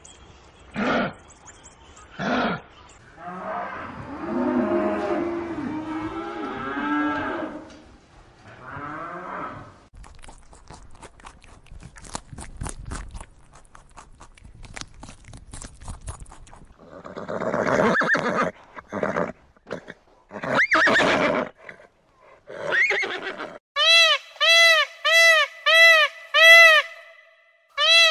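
Several different animal calls one after another: short calls, a longer pitched call, a spell of fine clicking, then a fast run of evenly spaced honks near the end.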